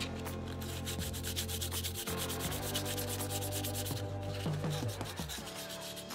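Sandpaper rubbed by hand in quick, even back-and-forth strokes over a 3D-printed resin lure body; the cured resin sands easily.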